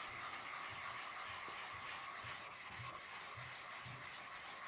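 A wet 16,000-grit polishing water stone being flattened by rubbing a flattening block back and forth over it: a steady gritty scraping, with strokes about twice a second.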